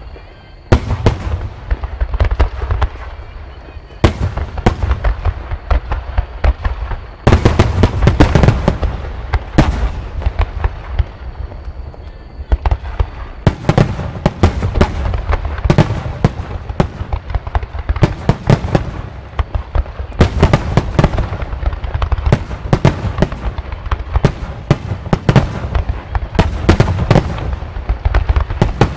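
Aerial fireworks bursting in rapid succession: deep booms mixed with dense crackling reports, almost without a break. A heavier barrage starts about seven seconds in.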